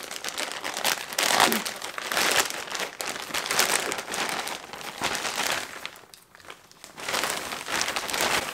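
A plastic poly mailer crinkling irregularly as it is pulled open and handled, with a short lull about six seconds in.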